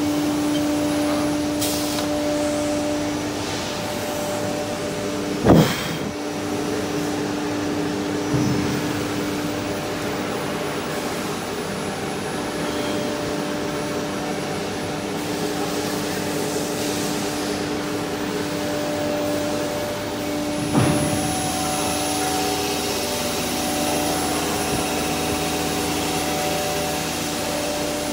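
SD-1530 linear ATC CNC router running as its spindle mills grooves into a panel: a steady whine over the rush of dust extraction. Two sharp knocks come about five seconds in and again about two-thirds through.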